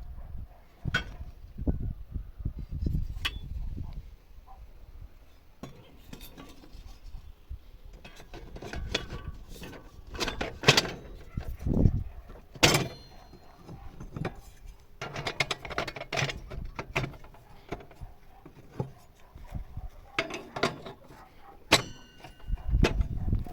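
Irregular clanks and clinks of metal parts being handled, a few strikes ringing on briefly with a clear tone.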